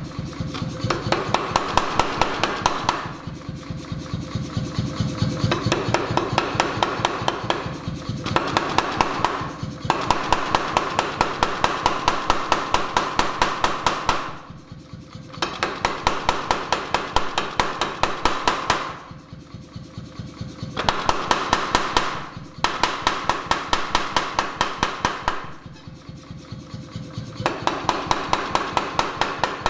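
C41-16 pneumatic forging power hammer, 16 kg ram, striking hot steel bar in rapid, even blows, several a second. The blows come in runs of a few seconds, broken by short quieter pauses.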